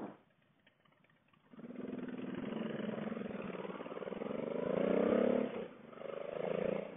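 V-twin motorcycle engine accelerating, its pitch rising, coming in about a second and a half in; it is loudest around five seconds, dips briefly, then picks up again near the end.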